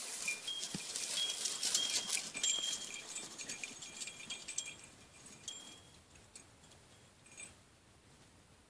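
Two Kangal dogs scuffling and running through dry grass: rustling and crackling of the stalks with a tinkling of small bells, loud for the first four seconds or so and then fading as the dogs move away.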